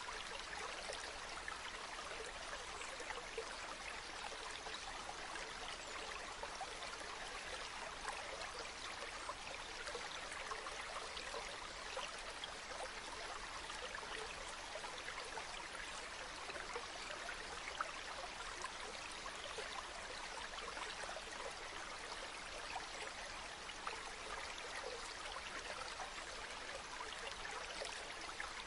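Mountain river flowing over stones, a steady bubbling and rushing of water.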